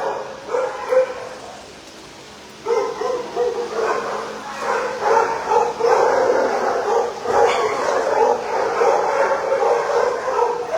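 Several shelter dogs barking and yipping over one another in kennels, dropping away briefly about two seconds in, then resuming nonstop.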